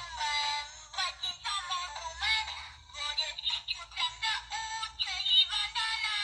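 Singing toy doll's built-in speaker playing a high-pitched voice singing a song in Armenian, thin with no low end.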